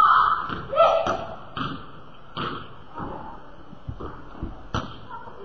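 Basketballs bouncing on a hardwood gym floor: separate thuds at irregular spacing of roughly half a second to a second. A short loud voice cuts in at the very start.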